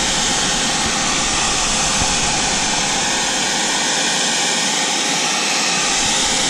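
Handheld hair dryer blowing steadily at close range, heating a tailgate emblem to soften its adhesive tape.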